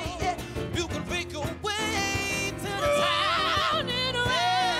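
Soul vocals in an acoustic arrangement: several singers holding and bending notes with heavy vibrato, with no clear lyrics, over conga drums.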